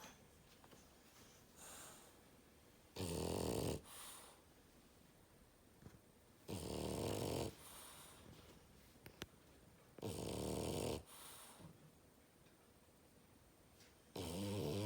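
French bulldog snoring loudly in its sleep. There are four rattling snores, each about a second long and spaced about three and a half seconds apart, with quieter breaths between them.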